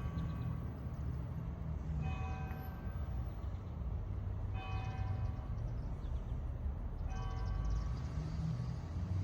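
Church bell tolling the hour: three slow single strokes about two and a half seconds apart, each ringing on and fading, with the last of an earlier stroke still ringing at the start. A steady low rumble runs underneath.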